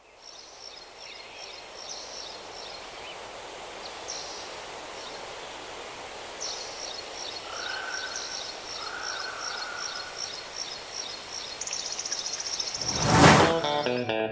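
Outdoor nature ambience fading in: a steady hiss with birds chirping in quick repeated series, two short whistled notes about halfway through, and a buzzy trill near the end. A loud rushing sound swells up and fades away shortly before the end.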